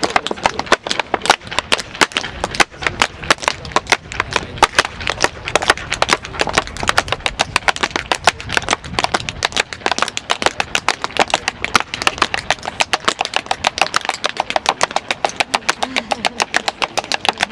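Tap shoes striking a portable wooden tap board in a fast, unbroken run of sharp taps, many a second, at an even level.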